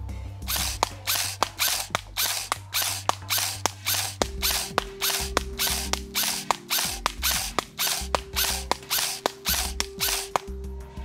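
Umarex/Arcturus HK416 A5 Gen.3 airsoft electric gun firing single shots in a steady series, about three a second, each a sharp mechanical clack. A pronounced spring noise is heard during firing, which the owner puts down to a badly positioned spring guide.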